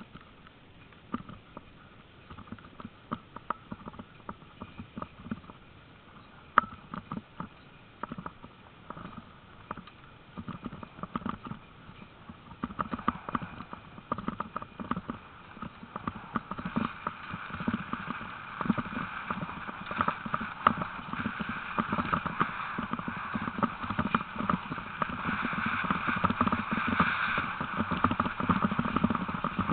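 A team of sled dogs running in harness, pulling a dryland training rig over a grassy dirt track: a constant patter of clicks and rattles, with a rolling, rushing noise that builds and grows louder from about halfway through.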